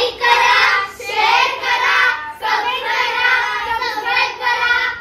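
A group of girls and women singing together in unison to the camera, in two long phrases with a short break in the middle.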